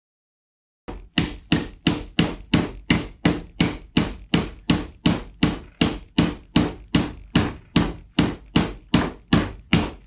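Steady hammering that starts about a second in, about three even strikes a second: a hammer driving nails into the box-jointed wooden corner of a beehive deep super.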